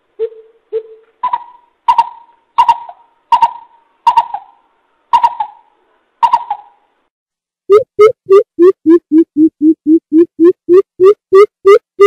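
Coucal calling. Two low hoots come first, then a run of sharper, higher notes, each starting with a click. Near the end comes a quick, even series of deep hoots, about three a second, that dips in pitch and rises again.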